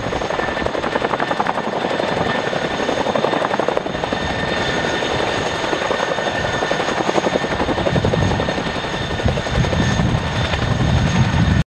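CH-47 Chinook tandem-rotor helicopter, its twin turboshaft engines under load as it hovers lifting a slung jet: rapid rotor blade chop over a steady high turbine whine, with a deeper rumble building in the last few seconds.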